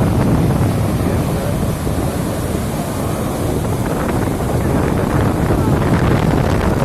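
Steady rushing of the Shivanasamudra waterfalls in full flood, with wind buffeting the microphone.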